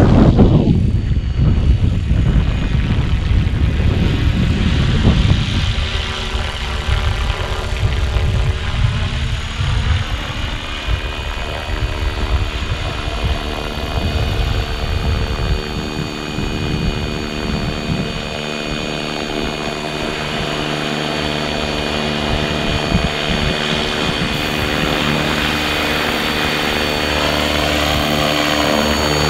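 FLY WING FW450 V2 electric RC helicopter in flight, its motor and rotor blades giving a steady whine of several tones that rises and falls in pitch now and then as it manoeuvres. Wind buffets the microphone for the first few seconds.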